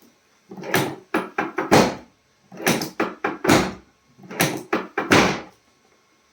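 Three quick groups of thumps and knocks during a chiropractic adjustment, each group three to five strikes, with short pauses between the groups.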